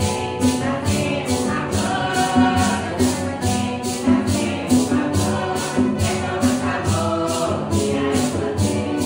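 A small group singing a devotional song together, accompanied by strummed acoustic guitars, with a shaker or tambourine keeping a steady, even beat.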